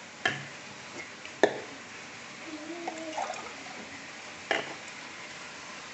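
Chicken pieces in paprik sauce sizzling and simmering in a wok on a gas burner, a steady hiss. Three sharp knocks break it, the loudest about a second and a half in.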